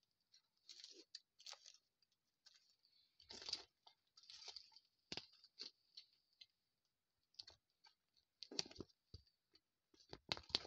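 Faint, irregular crackles and rustles close to the microphone, with a louder thump about three and a half seconds in and another cluster near nine seconds.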